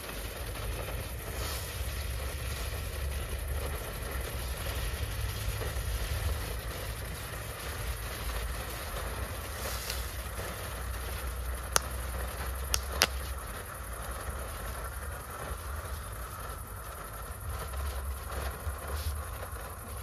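Wind rumbling on the microphone, with three sharp cracks about twelve to thirteen seconds in and a few fainter ones near the end, from small crackling firecrackers going off.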